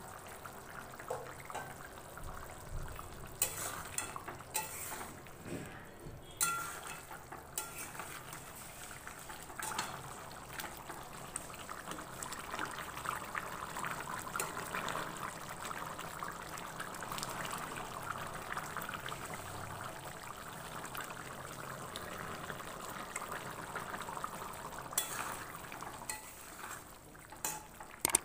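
Chicken curry bubbling at a simmer in an open pan, with a metal spatula scraping and clicking against the pan as it is stirred. The clicks come mostly in the first several seconds and again near the end, with a steady bubbling in between.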